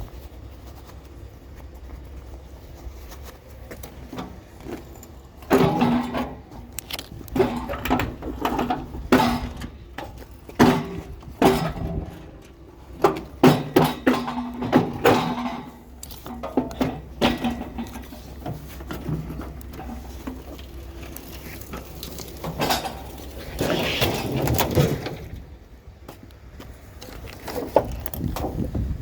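Metal scrap clanking and rattling as it is handled and pulled apart, in irregular clusters of knocks, over a steady low rumble.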